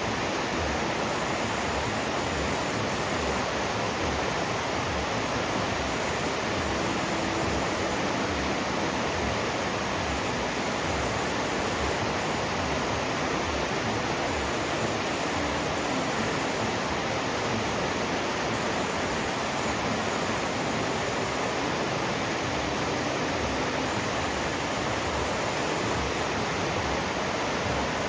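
River water rushing steadily, an even, unbroken hiss.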